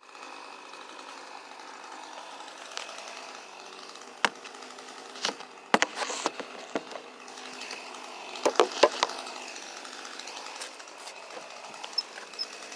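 Chainsaw running steadily while cutting a tall tree trunk at its base, with several sharp knocks about four, six and eight and a half seconds in.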